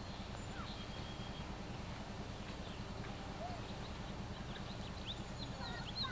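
Outdoor ambience: a steady low rumble with faint, scattered high chirps that grow more frequent near the end.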